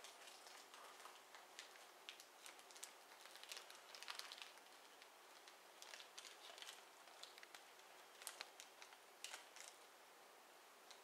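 Near silence in a small room, broken by faint, irregular small clicks and ticks.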